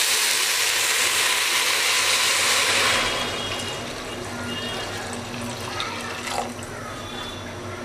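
Hot water poured in a steady stream into a pot of fried rice and whole spices, stopping about three seconds in; then a quieter hiss and bubbling as the water settles over the hot rice.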